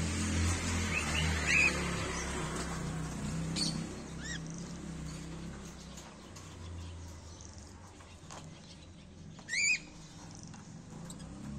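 Cockatiels giving a few short chirps, with one louder, sharper call near the end, over a low steady rumble.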